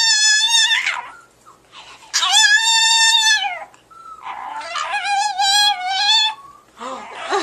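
A dog giving three drawn-out, high-pitched, howl-like calls, each about a second long and bending up and then down in pitch. It is a 'talking' dog imitating the words 'I love you'.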